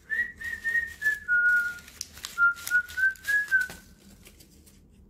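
A person whistling a short tune of about ten notes: a few higher notes, a longer lower note, then a stepwise rise and fall. It stops a little before four seconds in. A few light clicks sound along with it.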